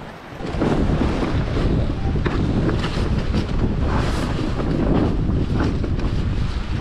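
Wind buffeting the microphone, swelling about half a second in, over water rushing and slapping along the hull of a J120 racing sailboat under way.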